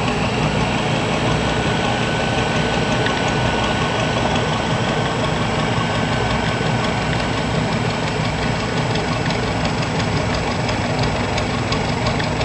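ATV engine idling steadily, without revving.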